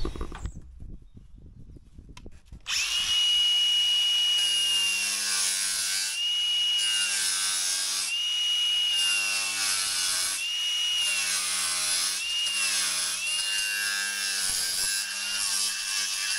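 Milwaukee cordless angle grinder starting up about three seconds in and cutting the fins off the top of a plastic window frame. Its high motor whine sags in pitch again and again as the disc bites into the frame.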